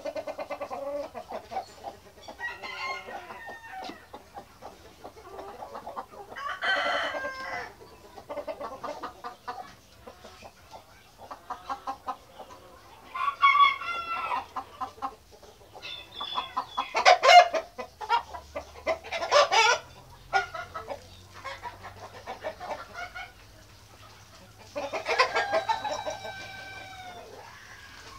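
White Australorp chickens clucking and calling in bursts, with a long rooster crow near the end.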